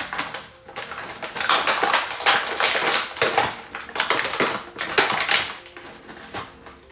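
Stiff clear plastic packaging tray of an action figure crackling and crinkling in quick, irregular snaps as it is pulled open and the figure is worked out of it. It quiets down near the end.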